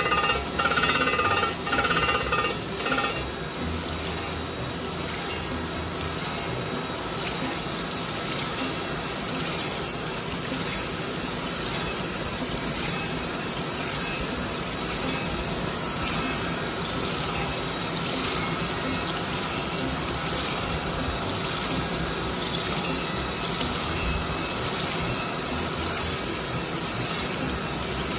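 Crank grinder's wheel grinding a journal of an 8.1-litre Volvo Penta crankshaft under coolant spray. For the first few seconds the grinding pulses about twice a second as the wheel bites on the high side of the out-of-round journal, then it settles into a steady grinding hiss.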